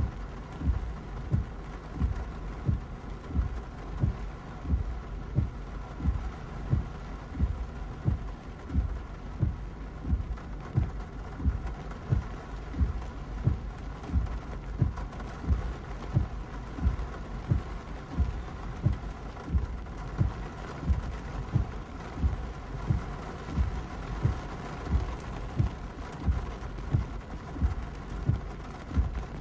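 Car windshield wipers sweeping back and forth in heavy rain, a low thump about one and a half times a second, heard inside the car over the rain and a steady hum.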